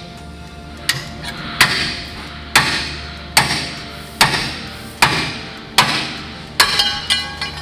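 Hammer blows on the steel suspension and axle parts of a chassis, about eight strikes at a steady pace of a little more than one a second, each ringing briefly, with a few lighter taps near the end.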